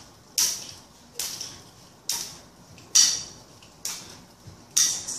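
A heavy jump rope with a hose-like plastic cord slapping the hard floor on each turn while someone skips: six sharp slaps, evenly spaced a little under a second apart.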